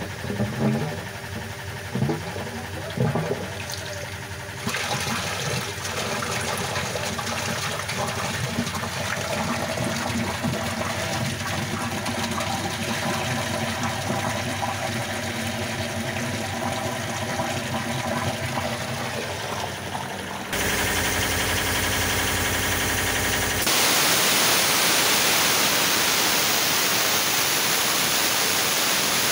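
Water dripping from a pipe outlet into a water tank, then, about four and a half seconds in, a full stream of pumped water pouring from the outlet into the tank. Near the end comes a short low hum, followed by a loud steady hiss.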